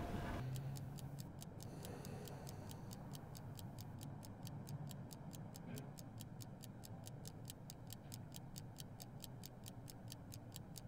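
Mechanical pocket watch ticking steadily and quickly, about five ticks a second, heard close up.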